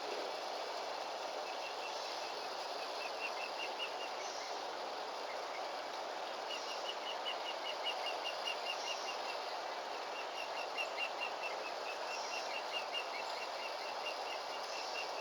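Steady outdoor hiss with runs of short, high, evenly repeated chirps, about five or six a second, coming and going several times.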